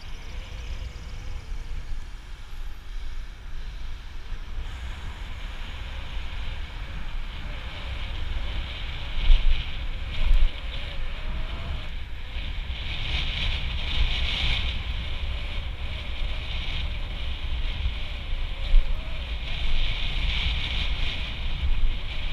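Wind buffeting the microphone of a bicycle-mounted GoPro Hero 4 Silver while riding: a steady low rumble with a hiss that swells and fades several times, and two sharp bumps near the middle.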